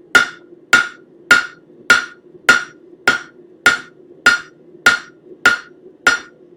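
Blacksmith's hammer striking a 1/4-inch square steel bar on an anvil in a steady rhythm, drawing out a taper: eleven even blows, a little under two a second, each a short ringing clang.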